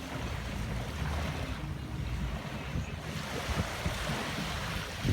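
Ocean waves breaking and washing ashore, with a broad rush of surf building about three seconds in, over a low irregular rumble.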